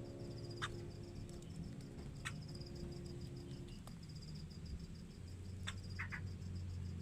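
Faint, even, rapidly pulsing high trill, insect-like, running throughout, with a few short sharp chirps over it, two of them close together near the end.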